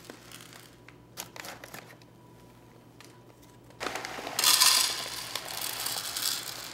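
Bentonite cat litter granules poured from a plastic bag into a clear plastic plate, with the crinkle of the bag being handled. A few light rustles and clicks at first, then from about four seconds in a loud, steady hiss of granules pouring out, loudest soon after it starts.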